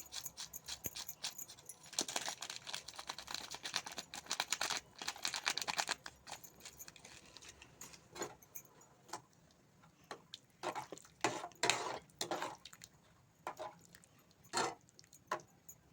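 Small metal kitchen utensils clinking and rattling against a cooking pot: a dense run of quick ticks and rattles for the first few seconds, then scattered single clinks.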